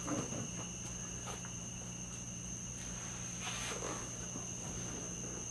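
Steady high-pitched whine over a low hum, with faint rustling of the dash pad being handled about three and a half seconds in.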